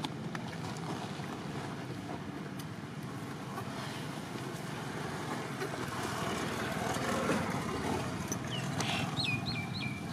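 Uneven low rumble of wind buffeting the microphone, with a steady hiss. Near the end come three or four short, high chirps, each falling in pitch.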